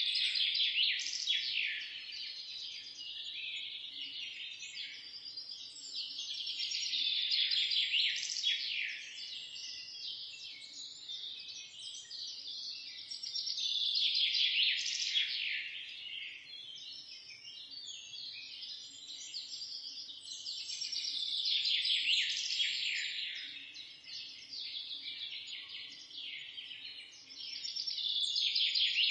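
Many small birds chirping together in a dense, high chorus of quick down-sliding chirps, swelling louder and fading back about every seven seconds.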